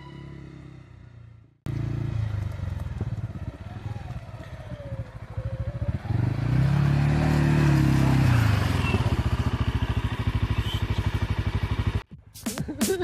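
CFMoto CForce 520 ATV's single-cylinder engine running on the trail, its note climbing and then dropping back around the middle of the run as the throttle is opened and closed.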